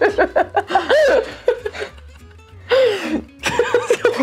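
Laughter in several bouts over background music with a low bass line that steps in pitch.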